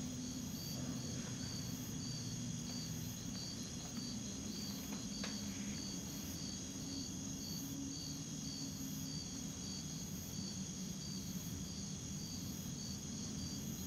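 Faint crickets chirping in an even rhythm of a few chirps a second, over a low steady hum of night ambience.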